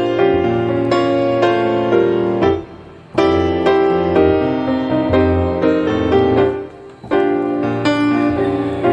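Background music: a gentle piano passage with no singing, pausing briefly twice.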